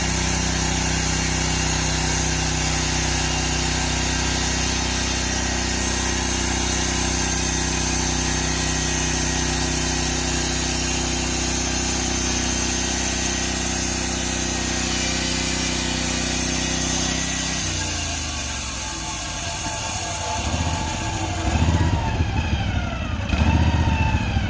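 Portable Norwood band sawmill's engine running steadily at high speed during a cut. About 17 seconds in, the engine's pitch drops as it winds down, and it runs rougher and uneven near the end.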